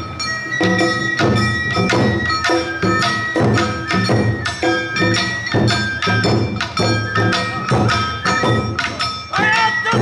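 Awa odori festival band music: drums and a small hand gong beating a brisk, even rhythm, with held high melody notes over it.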